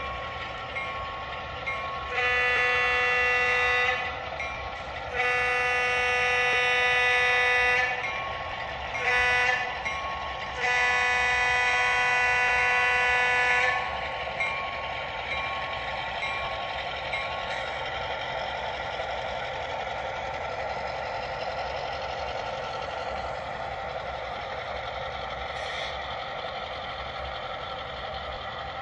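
Sound-decoder diesel horn on an O scale model GP7 locomotive blowing the grade-crossing signal: two long blasts, a short one and a long one. Under and after it the locomotive's steady running sound carries on.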